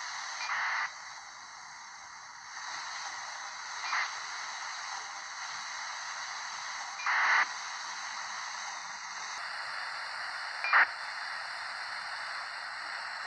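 Static hiss from the XHDATA D-808 portable radio's speaker, tuned to no transmission, with short louder bursts of noise about every three or four seconds.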